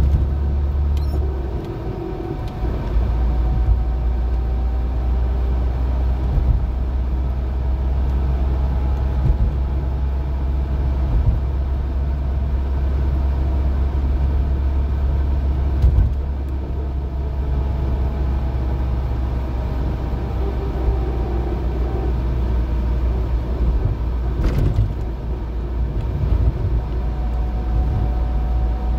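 Alfa Romeo 75 driving, heard from inside the cabin: a steady low engine and road rumble with a faint engine whine that drifts gently up and down. A single brief knock sounds late on.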